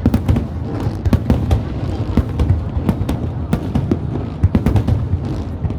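Aerial fireworks bursting in rapid, irregular succession: several sharp cracks and bangs a second over a continuous low rumble.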